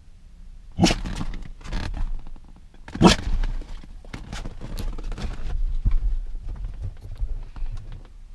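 A dog in a truck cab makes two short, sharp sounds, about a second in and again about three seconds in, followed by shuffling and rustling as it moves about on the seat.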